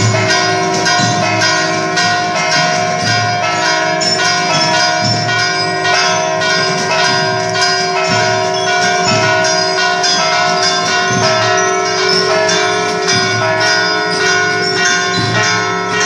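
Church bells ringing, struck again and again in quick succession, their tones ringing on and overlapping.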